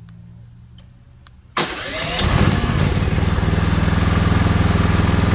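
A few faint clicks, then about one and a half seconds in a generator's engine starts abruptly and settles into a steady run with a low hum.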